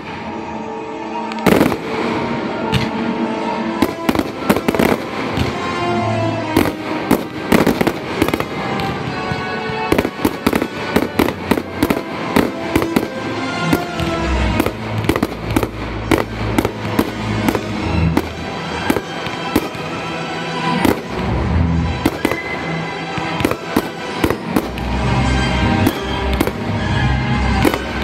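Fireworks display fired to music: aerial shells bursting in quick, irregular succession, many sharp bangs and cracks over the music. A heavy bass comes into the music about halfway through.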